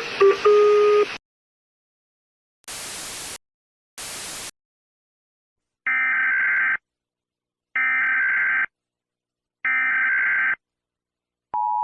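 Electronic alert tones. A stepped tone melody ends about a second in, then come two short bursts of static, then three evenly spaced beeps about two seconds apart. Near the end a steady two-tone signal like the EAS attention tone starts.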